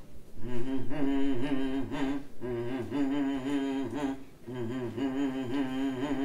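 A person humming a wordless tune in long, wavering held notes, in three phrases with two short breaks for breath.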